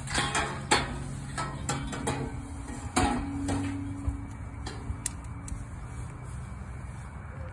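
Steel cattle chute clanking and rattling: a quick run of metal knocks in the first few seconds, the hardest about three seconds in leaving a short ring, then a few scattered knocks.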